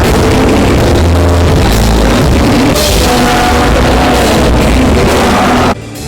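Loud music that cuts off suddenly near the end, leaving a much quieter passage.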